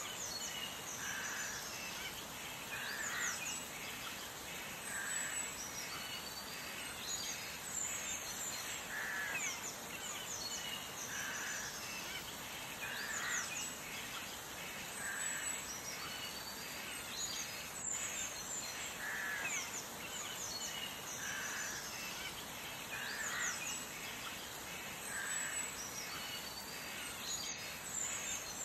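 Outdoor ambience of birds calling over a steady hiss: a mid-pitched call repeats about every two seconds among many short, high chirps.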